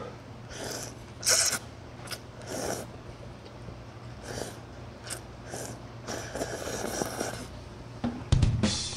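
A person slurping up broth-soaked noodles from a bowl in a series of short, sharp slurps and breaths, the loudest about a second in and a longer run of slurping around six to seven seconds. Near the end comes a heavier, dull knock.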